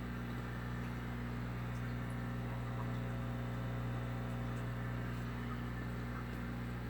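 Steady electrical hum from the running filtration equipment of a large aquarium, its Fluval FX6 canister filters and air pump, with a faint hiss above it.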